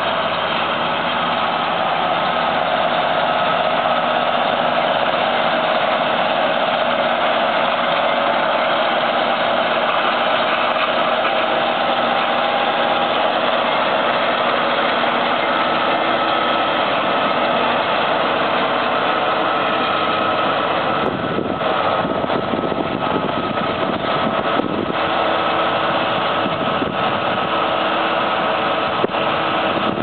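John Deere 7530 tractor's six-cylinder diesel running steadily while it drives a McHale Fusion 2 round baler, a continuous mechanical drone with a steady whine over it. From about two-thirds of the way through, wind gusts buffet the microphone.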